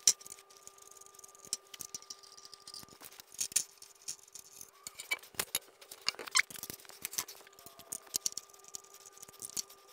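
Irregular small metal clicks, clinks and taps of hand tools and loose hardware as the tracks are unbolted and taken off the table section of a longarm quilting frame.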